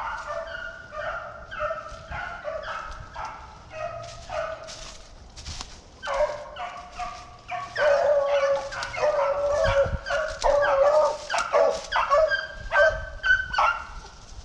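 A pack of beagles baying as they run a rabbit's scent trail, several dogs' short calls overlapping. The baying grows louder and busier about six seconds in, and again about eight seconds in.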